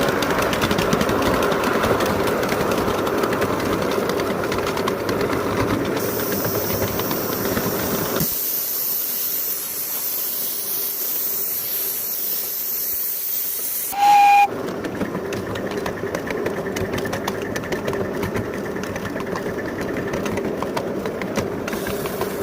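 5-inch gauge live steam locomotive running with a steady rattle and hiss of steam, including a stretch of high steam hiss with the rumble gone. Just past the middle comes a brief, clear toot of its steam whistle, the loudest sound.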